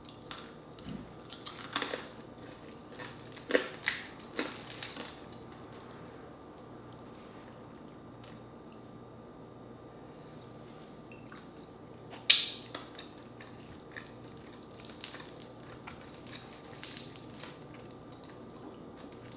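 Close-miked eating sounds of deep-fried pork leg (crispy pata): chewing and wet mouth clicks as the meat is picked apart by hand. The clicks come in a cluster over the first few seconds and then go quiet for a while. One sharp click, the loudest sound, comes a little after twelve seconds, followed by softer scattered clicks.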